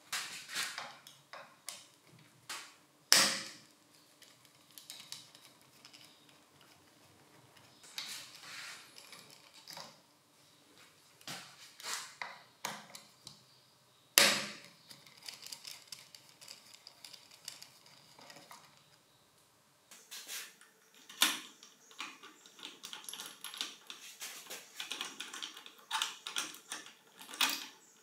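Metal parts of a Makita HR2451 rotary hammer drill's gear housing being handled and taken apart: scattered clicks, clinks and scrapes of steel on steel, with a few louder sharp knocks.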